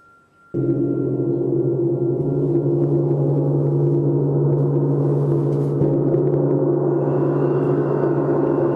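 A deep, resonant drone of several steady tones starts abruptly about half a second in and holds at an even level without dying away. A faint high tone rises over it near the end.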